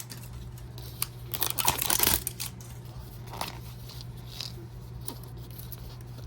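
A small blind-bag toy package being torn open, a short burst of tearing and crinkling about a second and a half in, followed by a few lighter rustles and clicks as the wrapping is handled.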